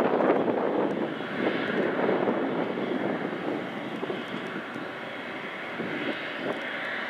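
Boeing 777-200LR's GE90 turbofan jet engines running as the airliner rolls along the runway on its takeoff run: a steady, dense jet rush that eases slightly partway through.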